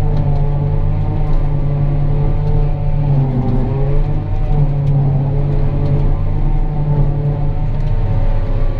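John Deere 8600i self-propelled forage harvester running under load while chopping a grass windrow, heard from inside its cab: a steady deep engine and machinery drone with a layered hum. Its pitch dips briefly a few seconds in.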